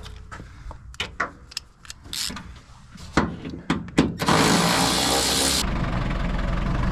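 A few metallic knocks and clicks, then an engine starts about four seconds in: a short loud burst as it cranks and catches, then a steady low idle.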